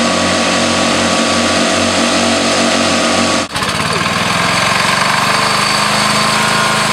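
Riding-mower engines running hard as two racing lawn tractors drive past. About three and a half seconds in, the sound cuts abruptly to an International Harvester Cub Cadet garden tractor's engine running steadily, with a brief rise in pitch just after the cut.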